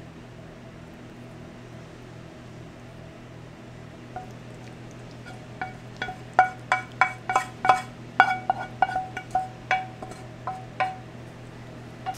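Cookware clinking as pasta is scraped from a frying pan into a ceramic serving dish: a string of sharp, briefly ringing taps, about two a second, starting about four seconds in and stopping shortly before the end. A steady low hum runs underneath.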